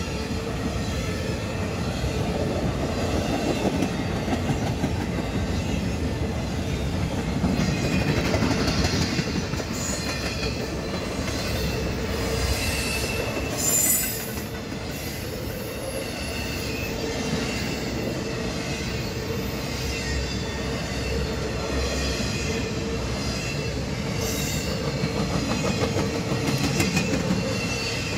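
Empty freight flat cars rolling past: a steady rumble of wheels on rail with clickety-clack over the rail joints and faint high wheel squeal at times. There is a brief louder burst about halfway through.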